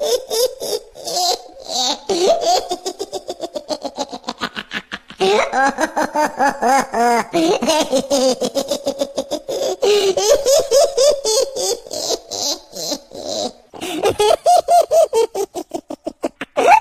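Sustained hearty laughter in long runs of quick, repeated 'ha-ha' pulses, broken by short pauses for breath about five seconds in and again near fourteen seconds.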